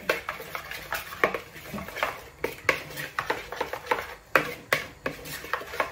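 A spoon stirring a thick spice-and-oil marinade in a mixing bowl, clicking and scraping against the bowl's sides in quick, irregular knocks.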